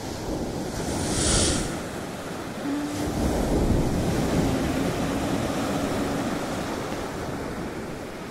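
Ocean waves and surf: a continuous rushing wash that swells and ebbs, with a brief hiss of spray about a second in.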